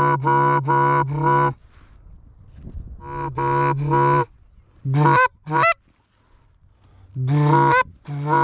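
Goose calls blown in rapid strings of loud honks, with short rising clucks in between, calling to a flock of geese as it circles in to land.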